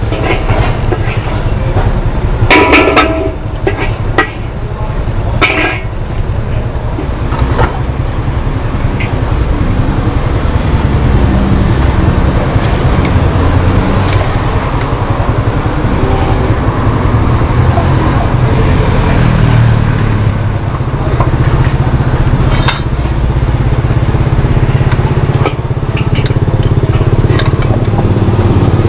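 Steady low roar of a gas wok burner under a large wok, with a metal spatula scraping and clanking against the wok as noodles are stir-fried; the clanks come a few times near the start and again near the end.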